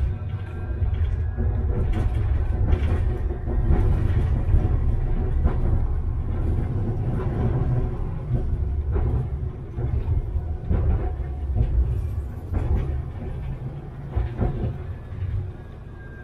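Tram running on rails: a steady low rumble with frequent clicks and knocks from the wheels on the track. It grows quieter over the last few seconds as the tram slows for a stop.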